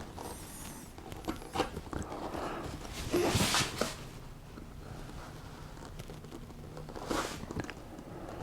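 A carving tool paring wood fibres from the walls of a recess in a few short scraping cuts, the strongest about three seconds in and another near the end, with light clicks of the tool against the wood in between.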